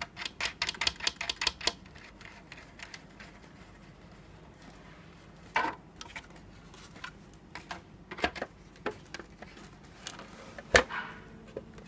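Hard black plastic parts and small metal fasteners being handled and fitted by hand. A quick run of about ten sharp clicks in the first two seconds, then scattered clicks and knocks, the loudest near the end as the assembled part is picked up and turned.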